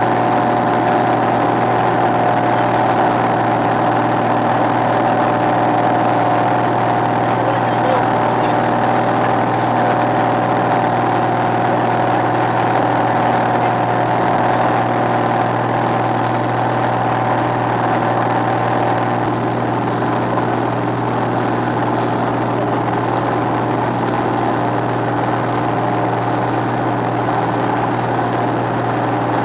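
Light single-engine propeller aircraft's engine and propeller droning steadily, heard from inside the cockpit.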